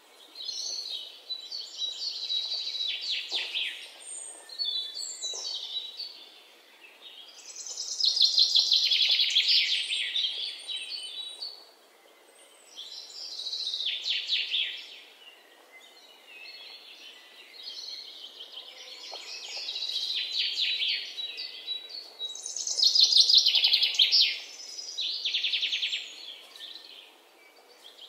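Graphite pencil scratching across paper as lines are drawn, in bursts of one to three seconds separated by short quieter gaps where the pencil lifts.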